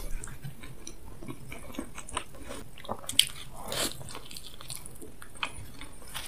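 Close-up eating sounds: chewing a mouthful of burrito with scattered small mouth clicks. A little over three seconds in comes a big bite into the flour-tortilla burrito, a sharp click followed by a short noisy rush.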